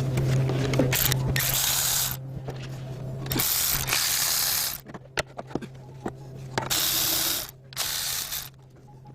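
Ratchet wrench loosening fasteners during an engine teardown. It goes in about four runs of a second or so each, with sharp tool clicks between them, over a steady low hum.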